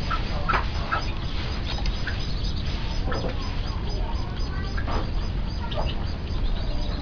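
Short, scattered clucks and calls of fowl over a steady low rumble.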